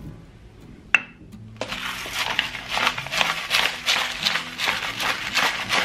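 A single sharp clink about a second in, then a hand-twisted pepper mill grinding black pepper in quick, repeated rasping strokes for the rest of the time.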